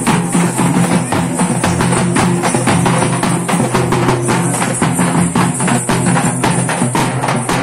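Drums beaten with sticks in a fast, steady rhythm, loud and continuous.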